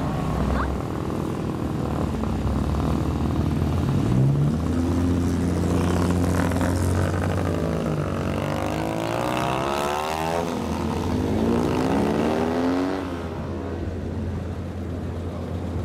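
Engines and exhausts of several lowered old cars pulling out of a car park one after another, running low and revving, with pitch rising and falling as each drives past. The sound is strongest in the middle and eases off near the end.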